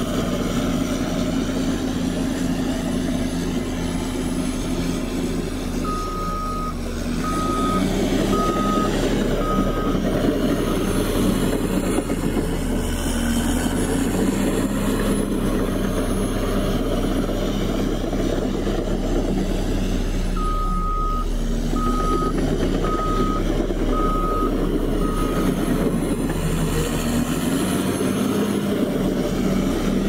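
Heavy earthmoving machinery running steadily, the engine note shifting with load, while a reversing alarm beeps in two runs: four beeps about six seconds in and five beeps about twenty seconds in.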